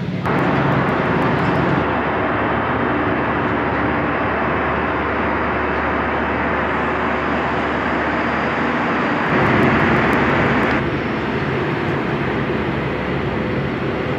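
Cabin noise of an Airbus A320-214 in flight: a steady rush of engines and airflow. It changes abruptly in tone and loudness a few times, about two seconds in and again around nine and eleven seconds.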